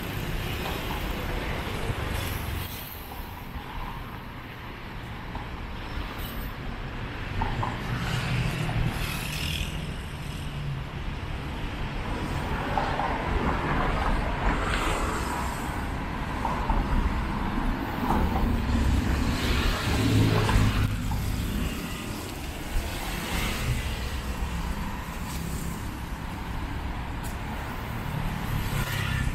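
Road traffic passing nearby: car engines and tyres making a steady rumble that swells and fades as vehicles go by, loudest about two-thirds of the way through.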